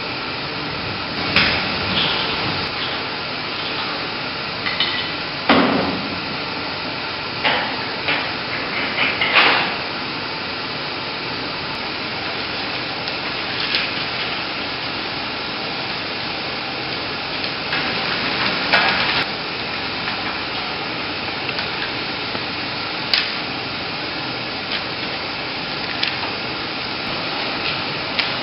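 Intermittent metallic knocks and clatters of film-handling hardware on an IMAX film platter, over a steady mechanical hiss of projection-booth machinery. The knocks come in a loose cluster in the first ten seconds and again a couple of times later.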